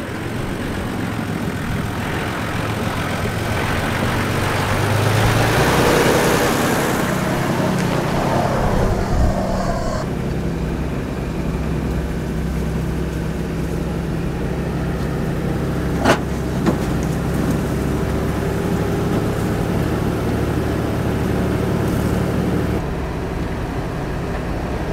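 A four-wheel-drive's engine and tyres on a sandy track as it drives up close, loudest about six seconds in. The engine then runs steadily, heard from inside the cab, with a single sharp knock about two-thirds of the way through.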